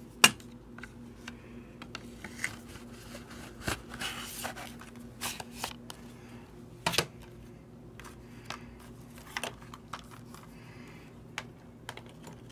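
Plastic Blu-ray cases and their cardboard slipcovers being handled: scattered sharp clicks and knocks of the cases, the loudest just at the start, with a short stretch of sliding, rustling cardboard partway through, over a steady low hum.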